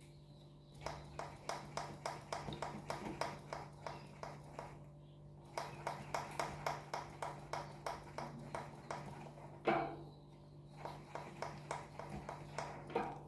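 Giant Crest suspension fork making an unwanted repeated clicking knock, about three or four clicks a second in runs, with one louder thump about ten seconds in.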